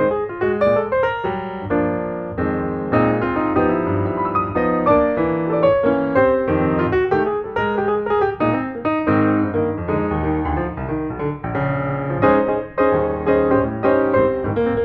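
Background piano music: a continuous run of quick notes and chords.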